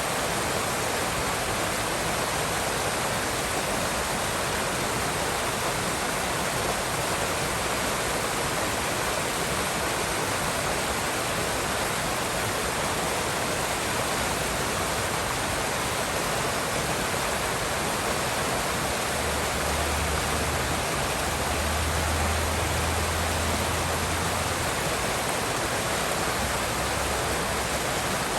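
River water rushing steadily. A low rumble rises under it for several seconds past the middle.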